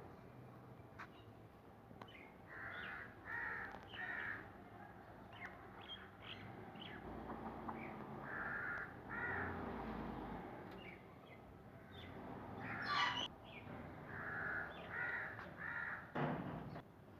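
Harsh bird calls in runs of about three, repeated three times over a faint outdoor background, with a louder sharp sound about thirteen seconds in.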